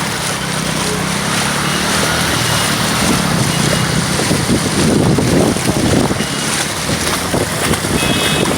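Heavy rain and traffic on a flooded road: vehicle engines running with water rushing and splashing, and a low hum that fades after the first few seconds. Louder surges of rushing water from about four to seven seconds in.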